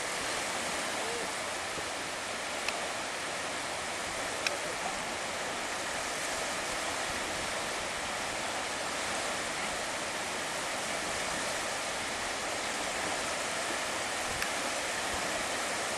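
Steady, even rush of surf washing onto a sandy beach, with a few faint ticks.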